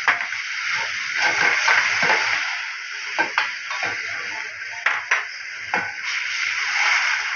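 Chicken pieces sizzling in a hot wok over a gas burner, a steady hiss, while a metal spatula scrapes and clanks against the wok several times as they are stirred.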